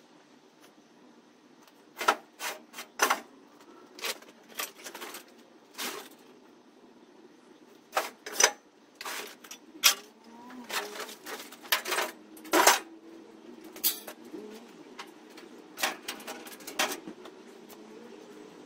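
Scrap metal clanking and clattering in irregular sharp knocks, some ringing briefly, over a steady low hum.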